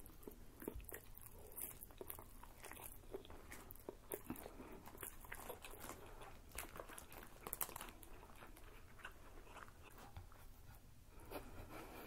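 Quiet eating of pismaniye, Turkish floss halva: chewing and biting with many small wet mouth clicks.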